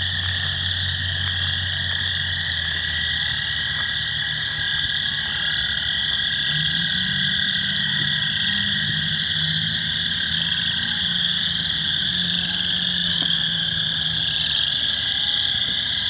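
A dense spring chorus of pond frogs calling all at once, a continuous high-pitched din with a higher and a lower layer of calls.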